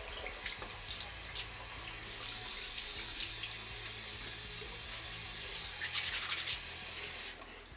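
Water running from a bathroom sink tap into the basin, with splashing from hands in the stream; it grows louder about six seconds in and stops shortly before the end as the tap is shut off.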